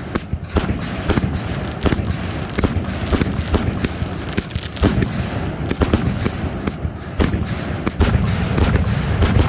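A 66-shot consumer firework cake firing, with sharp bangs coming irregularly at about two a second over a steady low rumble.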